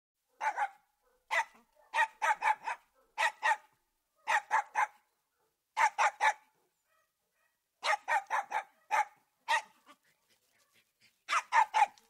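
Puppy barking in quick runs of two to four short barks, with brief pauses between runs.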